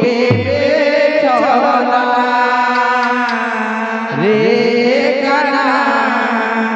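Live kirtan music from a devotional ensemble, with a held, wavering melody over a constant drone, and a barrel drum being played by the dancers.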